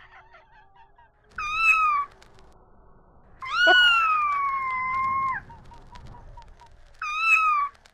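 Domestic cat meowing three times: a short meow, a long drawn-out meow of about two seconds, and another short meow near the end.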